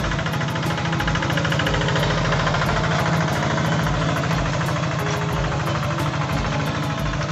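Quick G3000 Zeva two-wheel hand tractor's single-cylinder diesel engine running steadily under load while pulling a plough through dry soil, with a fast, even knocking beat.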